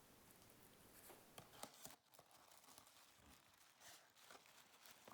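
Near silence with a few faint paper crinkles and ticks: a small Christmas ornament being unwrapped by hand.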